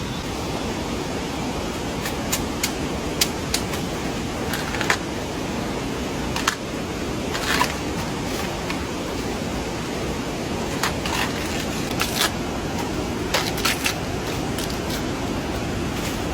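Steady rushing hiss of water in a rainy forest, with scattered sharp taps and clicks over it.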